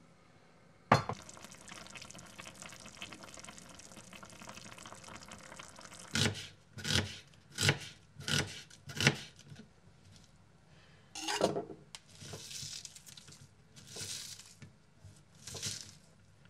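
A sharp glass clink, then a steady trickle of olive oil pouring from a glass bottle for about five seconds. Then a knife slices through an onion onto a wooden cutting board in five even chops, one more chop follows, and the cut onion slices rustle as they are separated by hand.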